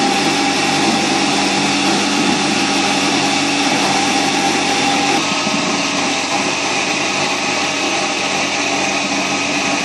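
A small motor running steadily with a constant whirring hum; its tone shifts slightly about five seconds in.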